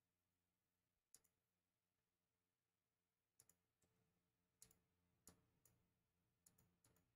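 Near silence with about ten faint, short clicks scattered through it, from trading cards being handled and stacked.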